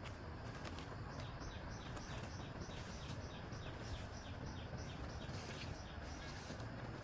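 A bird calling: a steady series of short, high, falling notes, about three or four a second, over a steady outdoor background hiss.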